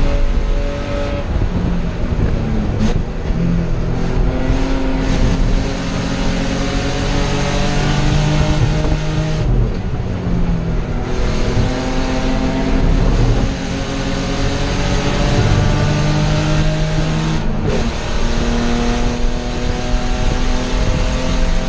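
Spec E30 BMW race car's engine at racing speed, heard from inside the cockpit: the engine note repeatedly climbs in pitch and then drops back as the car accelerates and changes gear or lifts, with loud road and drivetrain noise underneath.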